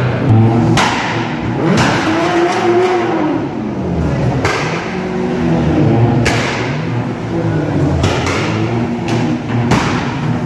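Car engines revving, their pitch rising and falling, echoing under the concrete deck of a multi-storey car park, with sharp bangs every second or two.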